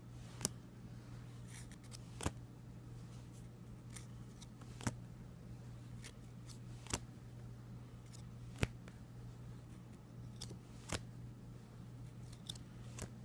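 Trading cards being flipped through one by one, each card giving a sharp click about every two seconds, over a steady low hum.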